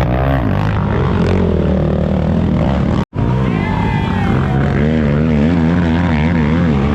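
Several race ATV engines running hard, their pitch wavering up and down as the riders work the throttle through the course. The sound cuts out for an instant about three seconds in.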